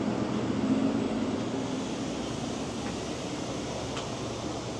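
Steady city street traffic noise, easing off slightly over the few seconds.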